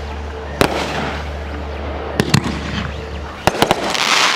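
Aerial fireworks going off: a sharp bang about half a second in, two more in quick succession about two seconds in, then a rapid cluster of bangs and a hissing burst of crackle near the end.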